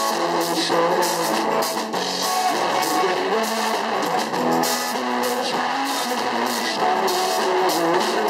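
Live band playing rock music, with strummed guitar to the fore.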